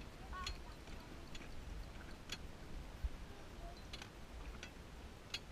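A steady low rumble with faint, short, sharp clicks, about one every second or so.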